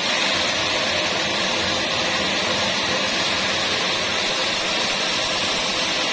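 Sawmill machinery running steadily: a continuous, even whirring noise with no change in pitch.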